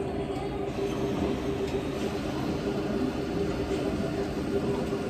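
Steady rumbling hum of a large cafeteria's room noise, machinery and ventilation, with one held mid-pitched tone over a low rumble.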